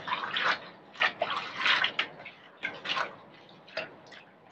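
Hands swishing and turning water spinach leaves in a colander of soaking water in a stainless-steel sink: irregular wet splashes and leaf rustling, about two a second.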